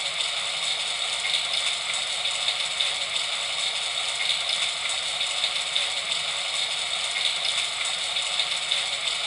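Steady rain: an even hiss made of many small drop impacts, with no change in strength.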